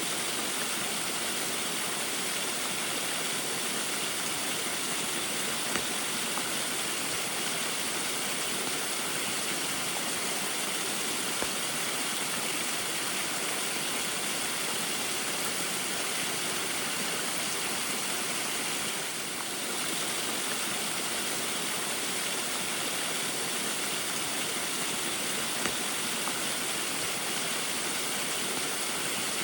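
Small waterfall in the rain: a steady, even rush of falling and splashing water that dips slightly for a moment about two-thirds of the way through.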